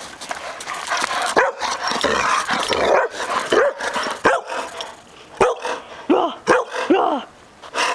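A dog barking in play: a string of about eight short barks, spaced out across a few seconds.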